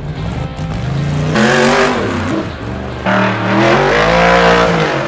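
Ultra 4 rock-racing buggy engines revving hard and falling off, loud, as the cars climb a boulder section. The sound changes abruptly about a second in and again about three seconds in, jumping to louder, higher revs each time.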